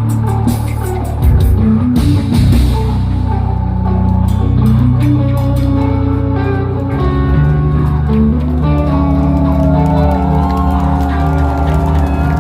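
Rock band playing live, with guitars carrying sustained notes over bass and drums.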